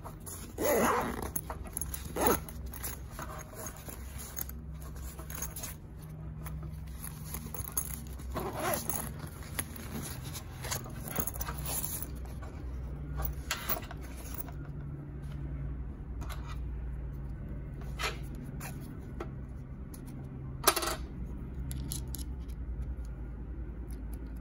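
Handling noises from a small padded nylon camera case: zipper pulls, fabric rustling and a few small knocks and clicks, one sharp click about 21 seconds in, over a steady low hum.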